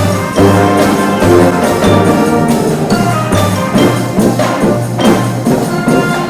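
Brass and percussion band playing, with pitched held notes over a steady beat of drum strokes.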